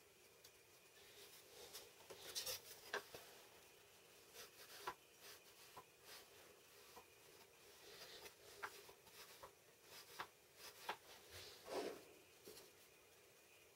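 Faint handling sounds: light clicks, taps and brief rubs as small MDF offcuts and measuring tools are picked up, held together and set down on a workbench.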